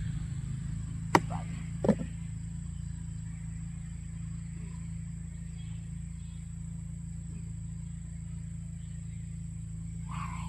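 Steady low drone of an excavator's diesel engine running nearby, with two sharp knocks about one and two seconds in.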